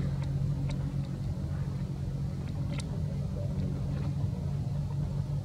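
A steady low motor hum, with a few faint clicks.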